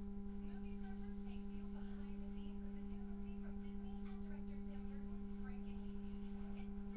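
A steady, unbroken low hum at one pitch with fainter steady overtones, with faint muffled voices underneath.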